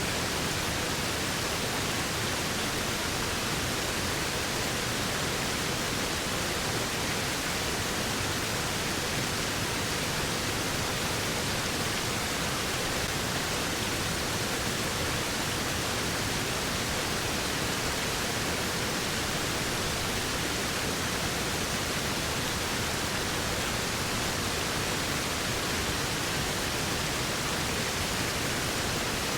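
Waterfall: water falling in a steady, even rush that does not change, with no separate splashes or breaks.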